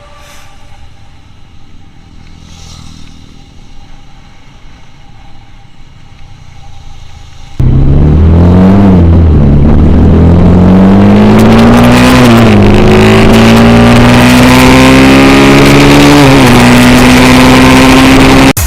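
Mahindra Mojo motorcycle engine accelerating hard through the gears, very loud. It starts suddenly about a third of the way in, its pitch climbs and drops at each of three gear changes, and it cuts off abruptly.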